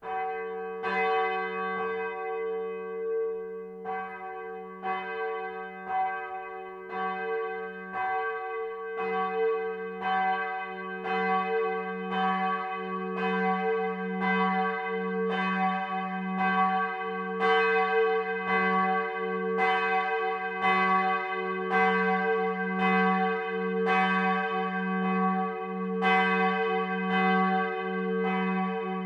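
A single swinging church bell from a seven-bell tower peal starts ringing. The clapper strikes about once a second, and the ringing swells over the first few seconds as the bell swings up.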